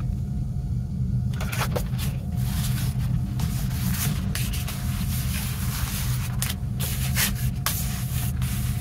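Paper rustling and sliding as booklet pages and loose sheets of paper are handled and laid down, starting about a second in, over a steady low hum.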